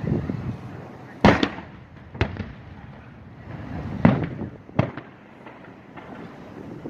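Aerial fireworks bursting: four sharp bangs spread over a few seconds, over a continuous low rumble of more distant shells.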